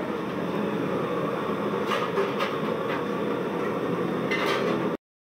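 Steady rushing noise from the stove fire under a wok in a dhaba kitchen where fish is being cooked, with a few sharp clinks of metal utensils. The sound cuts off abruptly about five seconds in.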